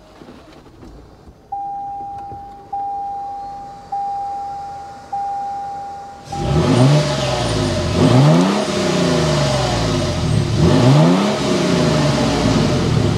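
Four single-tone warning chimes from the 2024 Toyota Tundra 1794's cabin, about a second apart, each fading away. About six seconds in, the truck's twin-turbo V6 starts and is revved again and again, the exhaust note rising and falling about every second and a half.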